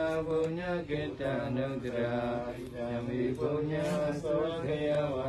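Buddhist monks chanting together, a continuous recitation of several male voices over a steady low held tone.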